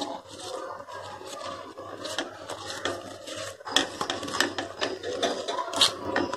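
A wilted banana leaf rustling and crinkling as hands fold and gather it around a filling into a pouch, with a couple of sharper crackles partway through and near the end.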